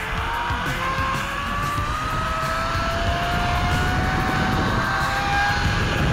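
Zipline trolley pulleys rolling along the steel cable, a whine that climbs slowly in pitch as the rider gains speed, over wind buffeting the microphone.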